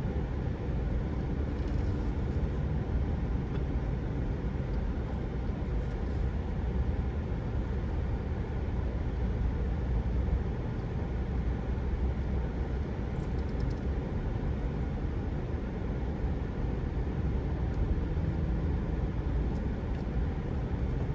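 A vehicle driving, its engine and road noise a steady low rumble.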